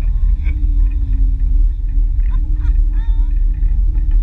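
Wind buffeting the microphone of a camera carried aloft on a parasail: a loud, steady low rumble with a faint wavering tone above it.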